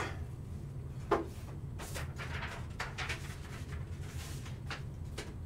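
Quiet room tone with a low steady hum and a few soft clicks and rustles from handling.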